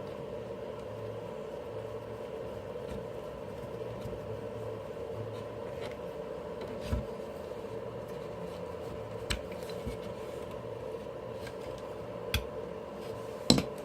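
A few sharp clicks and light taps from handling small tools and wires at a workbench, over a steady background hum.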